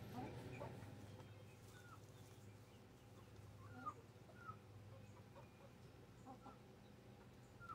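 Hens clucking faintly, a few short scattered calls a second or two apart, over a steady low hum.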